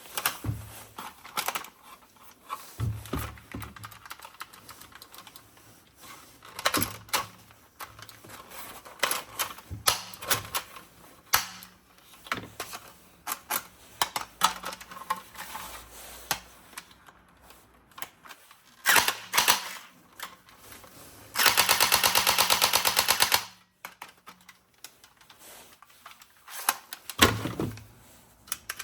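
Plastic toy gun being handled, with scattered sharp clicks and knocks. About two-thirds of the way through comes a loud, rapid, evenly spaced rattle about two seconds long, like a burst of automatic fire.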